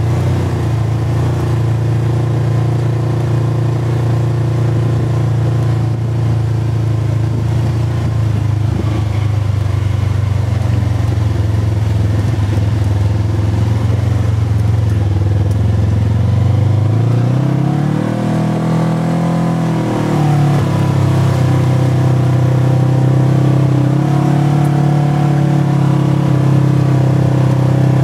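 A Polaris RZR Trail side-by-side's twin-cylinder engine running as it drives. About fifteen seconds in it rises in pitch as it speeds up, drops back about four seconds later, then runs on at a slightly higher pitch than at first.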